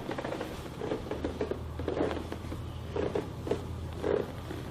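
A patient turning over on a chiropractic treatment table: clothing and padding rustling, with a few short soft creaks or knocks. A low steady hum runs underneath.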